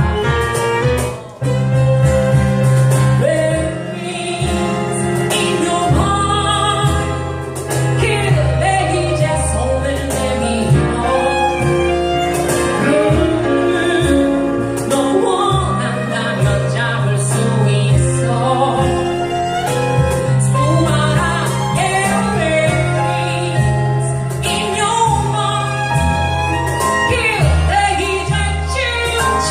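Band music in a jazz-and-classical style: a gliding melodic lead over a steady bass and regular drum strokes, with no words sung. The music drops out briefly about a second in.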